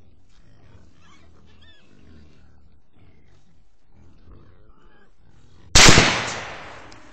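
Wild hogs grunting and squealing quietly, then one loud gunshot about six seconds in, its report dying away over about a second.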